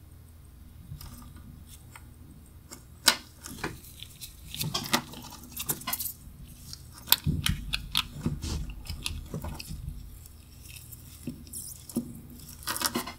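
A steel diver watch and its link bracelet being handled with gloved fingers while the case back is fitted: irregular small metal clicks, taps and rustles, sharpest about three and seven seconds in.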